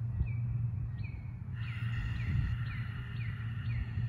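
A bird calling in a run of short, falling chirps, about two a second, over a steady low hum.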